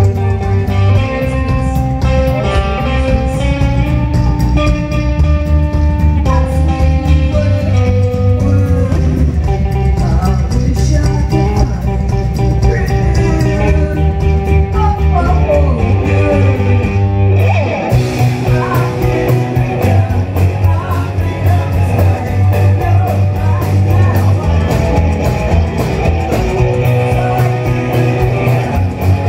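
A rock band playing live on stage through the PA: electric guitar, bass and drums with cymbals, with a short break about 17 seconds in before the band comes back in.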